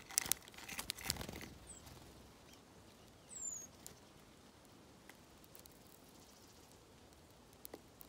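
Small birds pecking seed on a feeder tray: a flurry of quick taps and clicks in the first second and a half, then only scattered ticks. A single short high chirp, falling in pitch, comes about three and a half seconds in.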